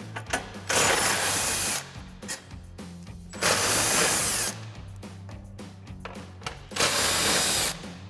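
Cordless impact wrench with a 13 mm socket running out bumper bracket bolts in three bursts of about a second each, roughly three seconds apart.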